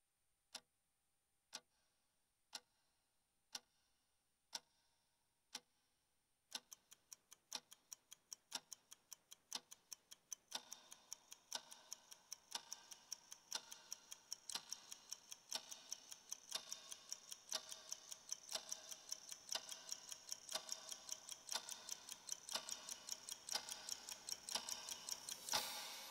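Faint ticking-clock sound effect: single ticks about once a second at first, then from about six seconds in a much faster run of ticks over a rising hiss. A short louder burst comes near the end.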